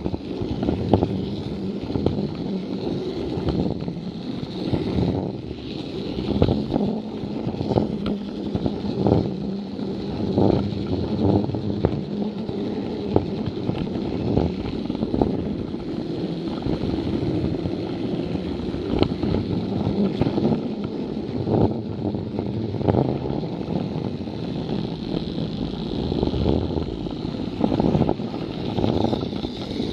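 Plarail toy train running along plastic track: its small battery motor and gearbox whir steadily, with irregular clicks and clatter as the wheels cross the rail joints.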